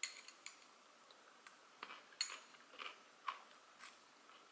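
About ten faint, scattered clicks and taps of metal chopsticks against a small ceramic sauce dish while a piece of sushi is picked up and eaten.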